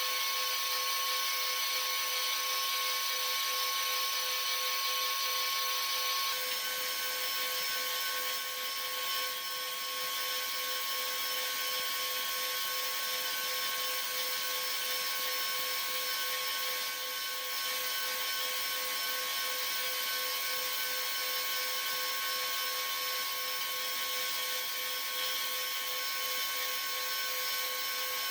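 High-speed spindle of a Deckel G1L pantograph engraving machine running with a steady whine as it engraves a branding iron. About six seconds in, some of the higher tones drop out and the whine carries on slightly quieter.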